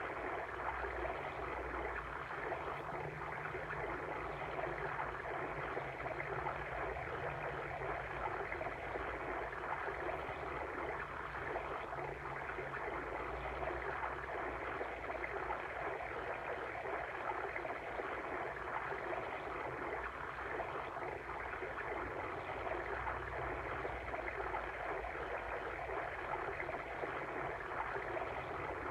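Babbling water stream, a steady, even rush of flowing water.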